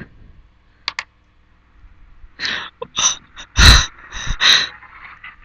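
A woman laughing in five or so breathy bursts, starting about two seconds in, close to a headset microphone. The loudest burst reaches the top of the recording level.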